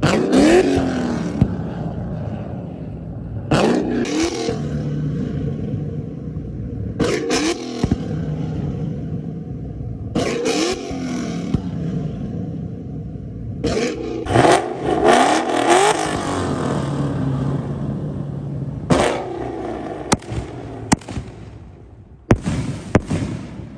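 Ford Mustang engine revved in repeated short blips every few seconds, each rev rising and falling in pitch, with sharp pops and crackles from the twin exhausts as they shoot flames.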